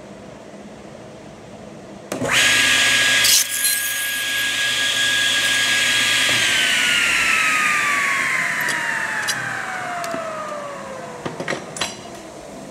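Table saw coming in loud about two seconds in with a steady high whine, loudest for the first second or so. After about four seconds the whine slides steadily down in pitch over some five seconds as the blade spins down. A few light knocks follow near the end.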